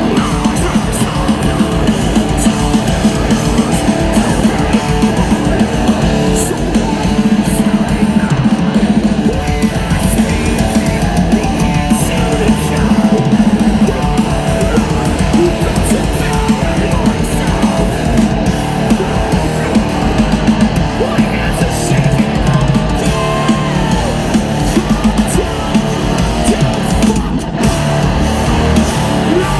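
Live heavy rock band playing loudly, with distorted electric guitars and pounding drums.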